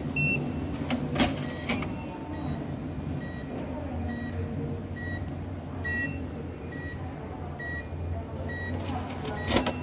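Automated teller machine beeping: a short high beep repeats a little faster than once a second, over the machine's steady low hum. Sharp mechanical clicks come about a second in and once, loudly, near the end.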